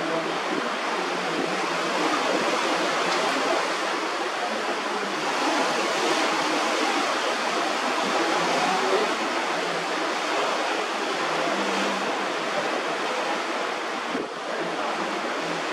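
Steady rushing of water with wind noise, even and unbroken throughout.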